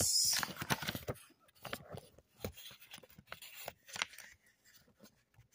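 Pages of a paperback comic book being handled and turned: paper rustling with scattered light clicks, after a short hiss at the start.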